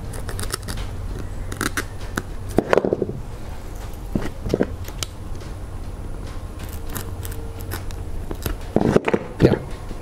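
Utility knife cutting and tearing away the fibrous white filler inside a stripped shore power cable: scattered short clicks and rasps, the loudest near the end, over a steady low hum.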